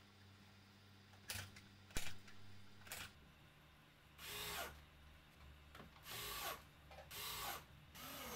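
Cordless drill driving screws through a long steel piano hinge into a laminated board, in four short bursts of about half a second each. Each burst falls in pitch as the trigger is released. A few sharp knocks come before the first burst.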